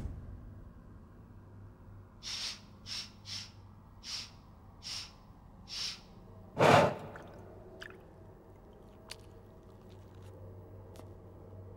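Breathing of an animated demon creature: six quick, hissy sniffs, then one louder breath about seven seconds in, followed by a few faint clicks.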